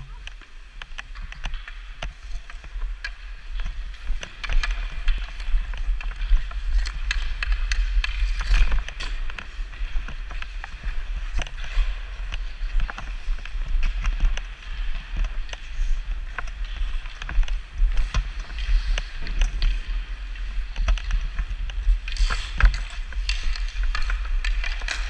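Hockey skates scraping and carving across rink ice, with many sharp clicks of sticks on pucks and ice, over a steady low rumble.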